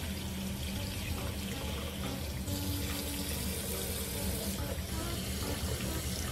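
Water running from a bathroom sink faucet, the stream splashing into the basin and over the hands and the small monkey held beneath it. The splashing hiss grows brighter for about two seconds midway.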